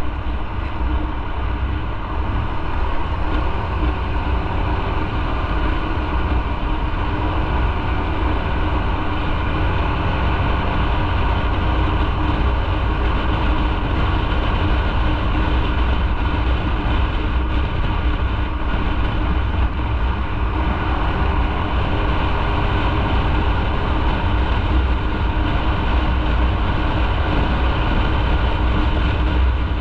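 Motorcycle riding at a steady speed: a constant engine hum over a deep road-and-wind rumble, with no change in revs.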